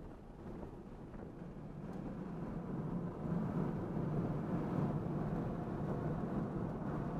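Road and tyre noise with wind, heard inside the cabin of an electric Tesla Model 3 cornering at speed on track: a steady rushing rumble with no engine note, getting louder about three seconds in.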